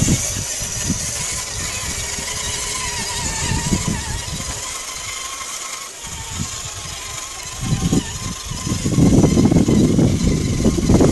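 Electric drive motor and gears of a radio-controlled scale crawler whining as it drives through mud, the pitch wavering with the throttle. A louder, uneven low rumble comes in for the last few seconds.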